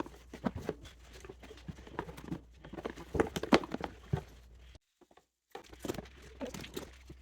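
Pop-it fidget toys being handled and packed into a box: irregular knocks, clacks and rustles.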